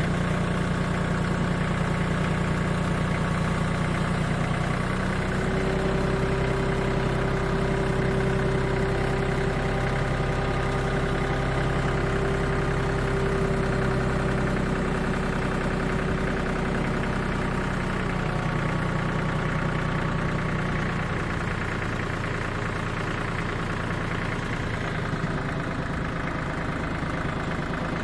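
Branson 2515 compact tractor's diesel engine running steadily while it moves a roof truss slung from the front-loader boom pole. A higher steady whine sits over the engine from about five seconds in until about eighteen seconds.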